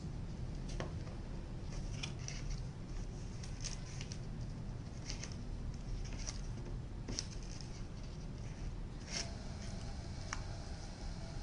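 Scattered plastic clicks and taps at irregular intervals, about ten of them, from handling an action camera in its clear waterproof housing while trying to open the case, over a steady low hum.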